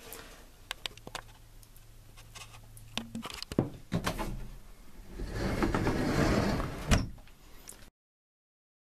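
Scattered light knocks and clicks, then a rumbling slide of an interior sliding door running along its track, ending in a sharp knock about seven seconds in; the sound then cuts off suddenly.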